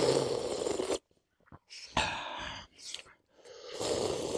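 Soup slurped from a bowl: three long sucking slurps, one at the start, one about two seconds in and one near the end.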